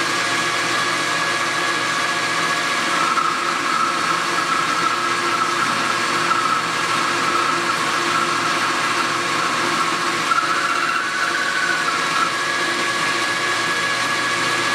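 South Bend 13-inch metal lathe running at its top spindle speed with a steady whine. From about three seconds in until near the twelve-second mark, a rougher cutting sound rides on top as the tool bit takes a 20-thousandths-deep turning cut on a bar.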